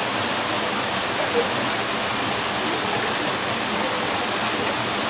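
Steady, even hiss of noise with no clear bird calls standing out.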